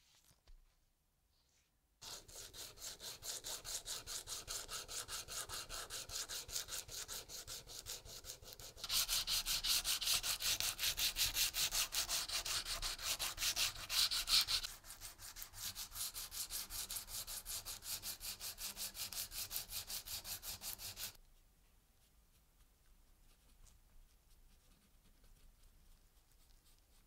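Hand-sanding the raised lettering of a powder-coated cast-metal tap wrench body with a small flat abrasive stick, in quick back-and-forth strokes of about three a second. The strokes get louder for a few seconds in the middle and stop about two-thirds of the way through.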